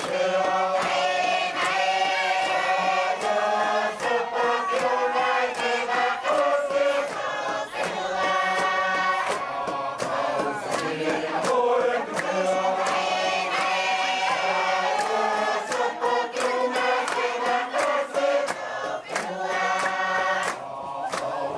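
A large group singing a Tuvaluan fatele song together in full voice, a chant-like choral melody. Sharp struck beats keep time underneath.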